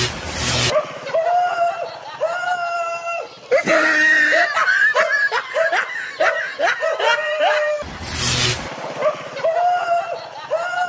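A dog yelping and crying out in fright as it flees, a run of high-pitched yelps that come thick and fast in the middle. Short noisy rushes come at the start and about eight seconds in.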